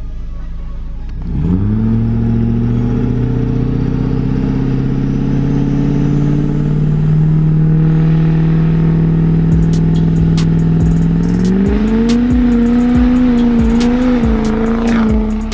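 Built Duramax diesel engine in a lifted GMC Sierra HD revving up sharply about a second in and held at high revs, creeping higher, for a burnout. Near the end the revs step up once more and then fall away, with sharp ticks and cracks over the last few seconds.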